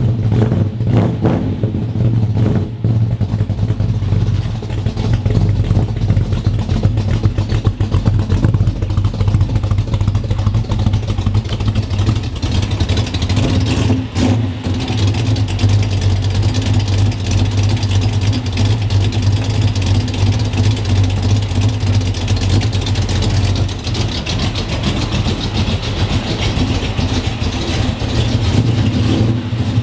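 A 1964 Chevelle's engine running steadily, a low rumbling idle with a dense even pulse of firing strokes.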